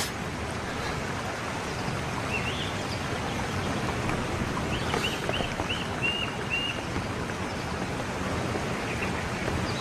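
Steady outdoor background noise with a small bird chirping: a quick rising chirp or two about two seconds in, then a run of five or six quick chirps ending in a short held note around the middle.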